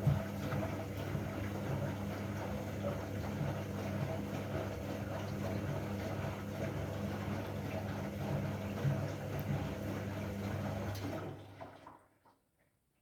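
Candy washing machine with water rushing through it over a steady electric hum, which dies away about eleven seconds in.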